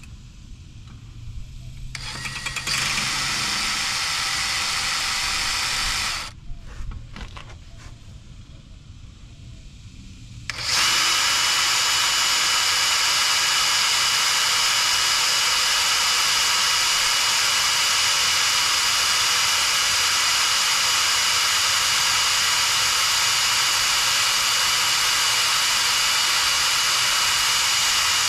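Power drill boring a new cotter-pin hole at a tie rod end's castle nut. It runs for a few seconds about two seconds in, stops, then runs steadily from about eleven seconds in, with a thin high whine over the cutting noise.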